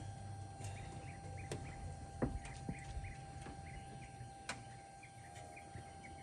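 A small bird chirping short notes over and over, with a faint steady whine underneath. A knock sounds about two seconds in and a sharper click comes around the middle.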